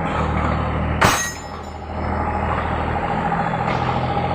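Engine idling steadily, with one sharp clack about a second in.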